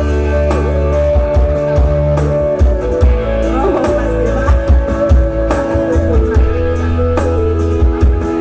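Amplified live music from an electronic keyboard: held chords and melody over a heavy bass line and a drum beat.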